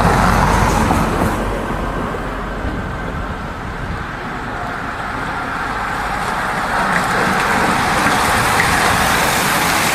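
A bunch of road racing bicycles approaching and riding past close by: a steady rush of tyres and freewheels on the road that grows louder about seven seconds in as the pack goes by.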